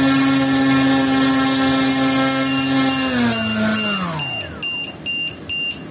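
Model airplane's electric motor spinning its propeller with a steady pitched hum, then winding down with falling pitch from about three seconds in. A LiPo voltage checker's low-voltage alarm starts beeping, a high tone about twice a second, faint at first and loud as the motor stops: the pack's cells have dropped to the 3.8 V alarm setting.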